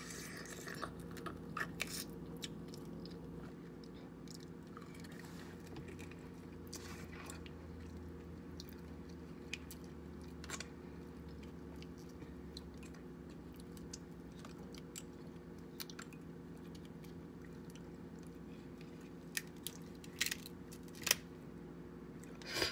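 Chewing and eating king crab legs, with scattered small crackles and clicks of the shell being handled and a few sharper clicks near the end, over a steady low hum.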